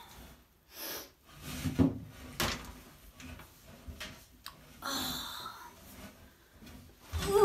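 Scattered knocks and clunks as a metal popcorn tin and a tuba are shifted about in a small tiled bathroom, the loudest a low thump about two seconds in. A breath around the middle and a short rising vocal sound at the very end.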